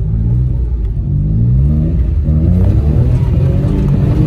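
Citroen C1's 1.0-litre three-cylinder petrol engine heard from inside the cabin, its revs rising and falling in repeated surges as it pulls uphill with the tyres slipping on slush.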